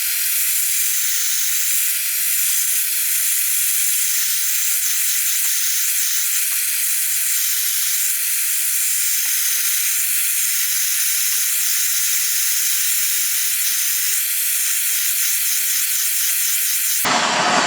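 Propylene torch flame hissing steadily, a high, thin hiss with no low rumble, with a few faint crackles, as it heats thick steel plate. The hiss cuts off abruptly near the end.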